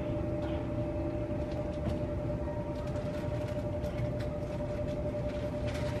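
Jet airliner engines running at a distance: a steady low rumble with a constant whining tone held over it.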